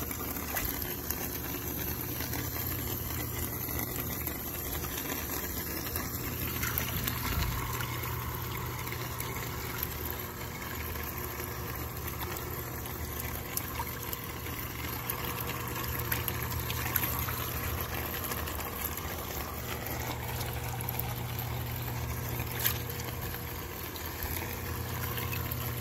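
Aerated live-bait tank running: steady bubbling and trickling water over a low pump hum, with a few brief splashes as a hand moves through the water.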